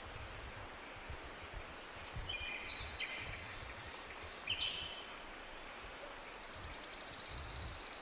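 Outdoor ambience with a low rumble, birds giving short high chirps twice, then a fast, high, pulsing trill from about six seconds in to the end.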